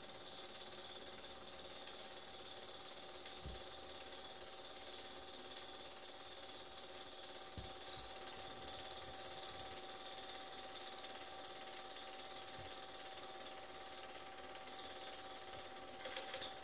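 Film projector running: a steady, rapid mechanical clatter from the shutter and claw, with a constant whine. A few louder clicks come just before the end.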